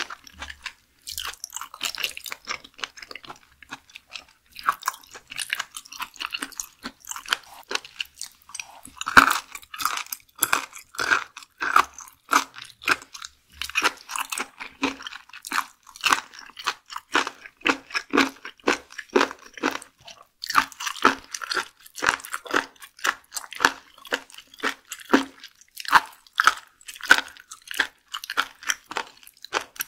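Close-miked chewing of raw seafood: a steady run of wet crunches and mouth clicks.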